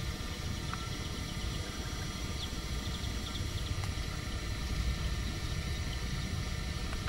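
Car engine and road noise heard from inside the cabin: a steady low rumble, with a few faint high ticks about halfway through.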